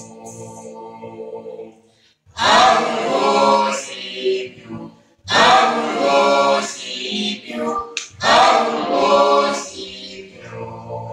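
Mixed-voice vocal quartet singing a cappella in close harmony: a held chord fades out, then three loud phrases each begin abruptly about three seconds apart, and softer held notes close the passage.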